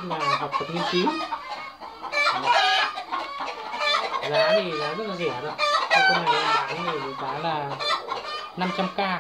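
Chickens clucking loudly in a run of short, repeated calls, with a rooster crowing among them.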